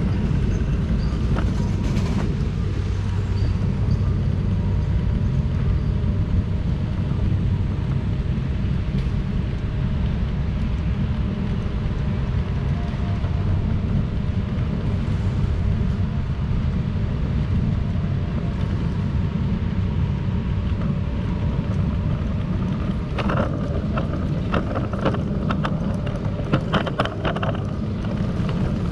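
Wind buffeting the microphone as a steady low rumble over faint street ambience, with a run of sharp clicks and knocks in the last few seconds.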